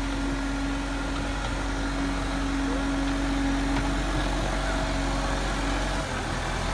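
Engine of a construction machine running steadily, with an even hum.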